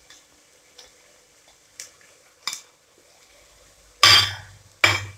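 Light taps and scrapes of a silicone spatula against a small bowl as ginger-garlic and green chilli paste is scraped into a nonstick pot of frying onions. About four seconds in come two short, loud clattering scrapes of a utensil against the pot.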